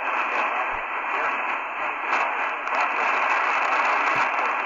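Steady static hiss from a Tecsun PL-330 portable radio's speaker. The radio is tuned to a weak, distant AM station at 680 kHz in synchronous upper-sideband mode, and the hiss is band-limited and muffled, with no clear voice above it.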